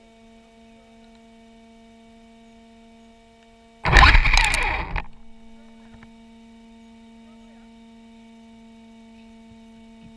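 A steady electrical hum made of several fixed tones. About four seconds in, a loud harsh noise lasts about a second and fades out.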